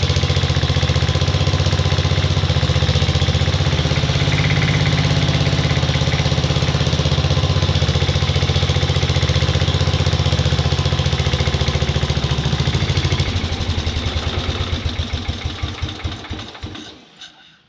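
Freshly rebuilt Briggs & Stratton model 23A single-cylinder engine running steadily. About thirteen seconds in it is shut off, and its firing slows to separate beats before it stops.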